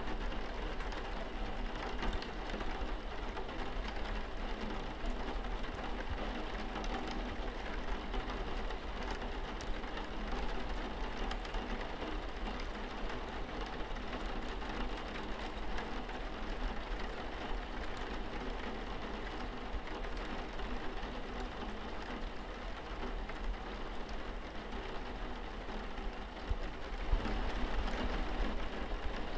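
Steady rain falling, with drops pattering on window glass; it gets a little heavier near the end.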